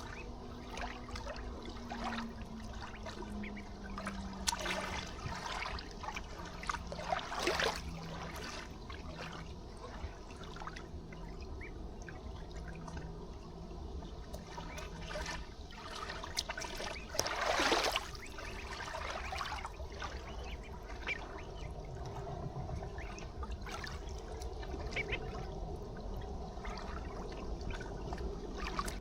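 River water trickling and lapping, with a few brief louder sounds from the ducks on the water, the loudest about two-thirds of the way through.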